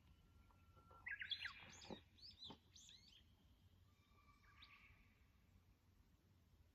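A bird singing: a quick run of chirping notes lasting about two seconds, then a fainter, softer call a little later.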